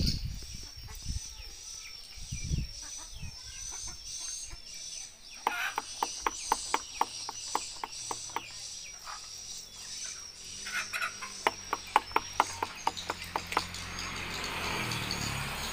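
A chicken clucking in two quick runs of sharp clucks, about four a second, starting about five seconds in and again after ten seconds, over a steady high-pitched tone.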